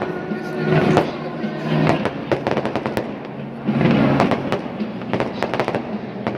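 Fireworks going off: a rapid run of sharp cracks and pops, many close together, thickest about a second in and again around four seconds in.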